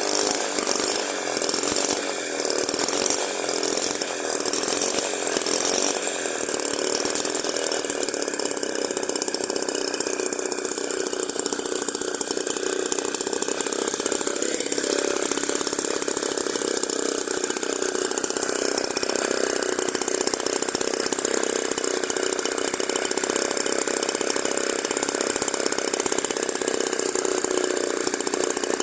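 Tiny 6 cc two-stroke engine, home-built from scrap parts, running with a high-pitched buzz. For the first six seconds it runs unevenly, dipping about once a second, then it settles into a steady run.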